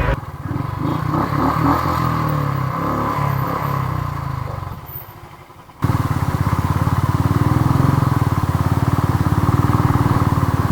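Royal Enfield Thunderbird 350's single-cylinder engine running while riding. The sound dies down about five seconds in, then cuts back in abruptly and louder about a second later.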